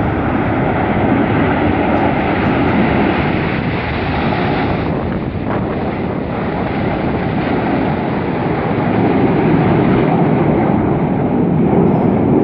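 Jet noise from a formation of Red Arrows BAE Hawk T1 jets flying past: a loud, steady rushing sound that grows a little louder in the second half.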